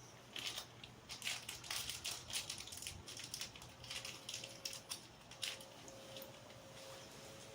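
Screw being driven through a metal doorbell mounting plate into a plastic wall anchor: a run of irregular scraping clicks and creaks lasting about five seconds, then dying away.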